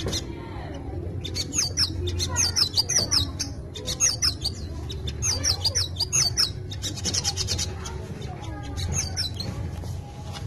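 Brown-throated sunbird (sogok ontong) singing rapid runs of high twittering chirps, a song made of white-eye (pleci) phrases it has learned in place of its own call. The runs start about a second in, go on for several seconds, and come again briefly near the end.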